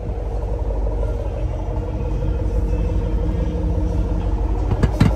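A motor vehicle's engine running steadily, a low rumble with a faint steady hum above it.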